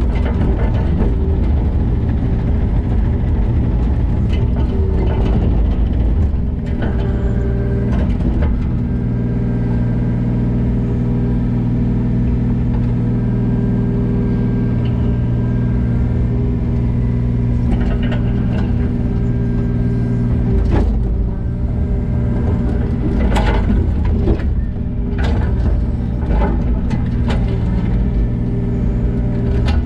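Diesel engine of earthmoving machinery running at work, with a few sharp knocks in the second half.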